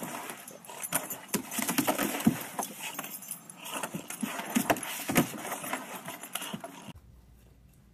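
Bulldog puppy scrambling up a plastic slide: rapid clicks and scrapes of claws and paws on the plastic, with some low grunting sounds. It cuts to quiet about seven seconds in.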